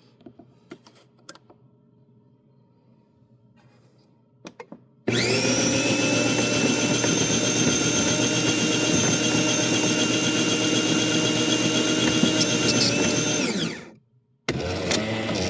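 Jura J5 coffee machine's grinder motor running with a steady whine for about nine seconds, then winding down, and starting again briefly near the end, after a few faint clicks. The machine is one that is said not to grind the beans properly.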